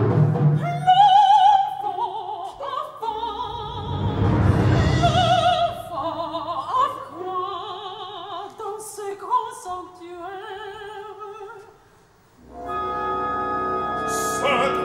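A woman sings an opera line in French with wide vibrato over the orchestra, with low rumbles beneath her early on. Her singing stops about eleven seconds in; after a brief hush the orchestra holds a steady sustained chord.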